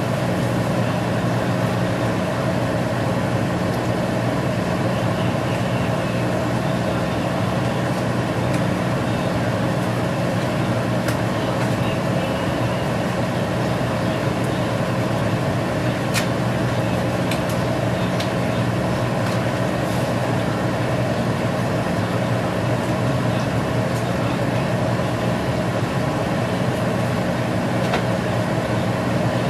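Steady hum of a small electric motor with a constant hiss, unchanging throughout, with a few faint clicks.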